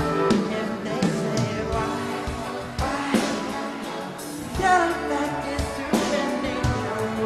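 Live pop song performance: a male lead vocal sings over a band, with sustained keyboard or synth chords and percussion hits.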